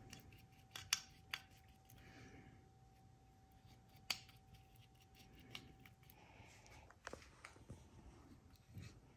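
Quiet handling of small metal engine parts: scattered sharp clicks and light rustling, the loudest clicks about a second in and at about four seconds.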